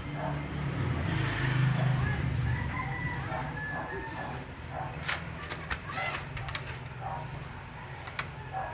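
A rooster crowing, with fowl clucking, over a low steady hum that is loudest a second or two in; a few sharp clicks come around the middle.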